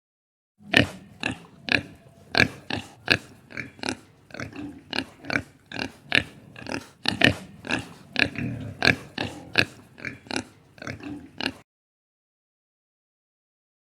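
Domestic pig oinking and grunting: a rapid string of short, sharp calls, about two or three a second. They start about a second in and stop abruptly near the end.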